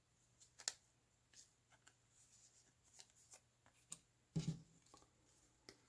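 Faint handling of baseball cards: a scatter of light clicks and rustles as the cards are slid and flipped one by one, with one short low sound about four and a half seconds in.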